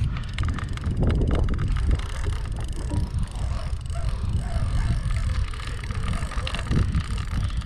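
Wind buffeting the microphone, with a fast run of clicks from the fishing reel as a large yellowfin tuna pulls on the line.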